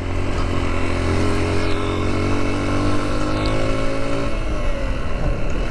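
Motorcycle engine pulling in gear on a rough off-road track, its pitch climbing slowly for about four seconds, then dropping away as the throttle is eased.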